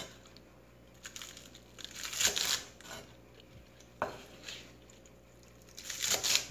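A cleaver slicing through crisp leek stalks onto a wooden cutting board, in four short bursts of quick chopping strokes, the loudest about two seconds in.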